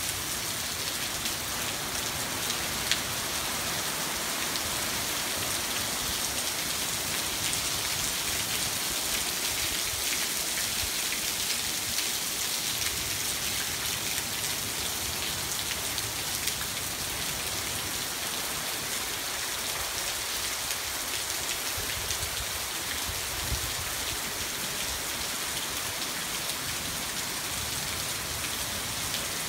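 Heavy rainy-season downpour falling steadily on garden foliage, lawn and tiled paving, making an even hiss with occasional sharper drop ticks.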